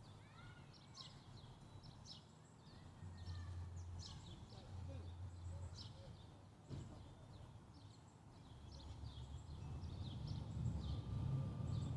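Small birds chirping and calling repeatedly in short high notes. A low rumble comes in briefly a few seconds in, then grows steadily louder through the second half.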